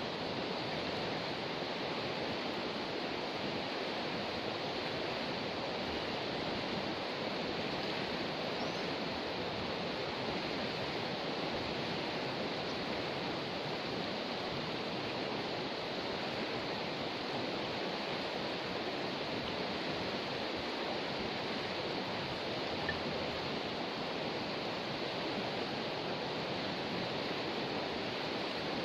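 River water rushing past in a steady, even rush, the river running high after a flood.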